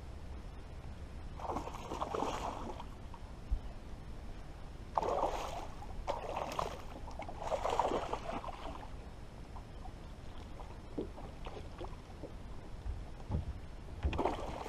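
A hooked fish splashing and thrashing at the water's surface beside the boat while it is reeled in, in several short bursts of splashing about a second apart, the last near the end.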